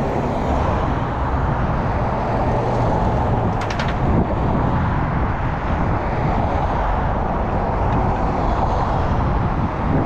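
Road traffic: cars driving past on a busy street, a steady rush of engine and tyre noise with a low engine hum. A short clicking rattle comes about three and a half seconds in.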